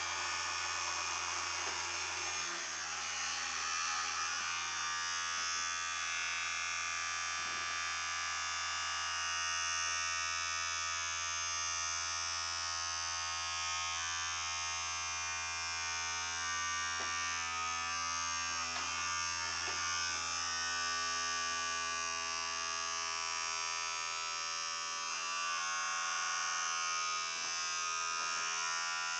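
Vibrating-toothbrush motor buzzing steadily in an aluminium foil tray boat, run off a 9-volt battery; the foil tray carries and adds to the buzz as the motor's vibration drives the boat around.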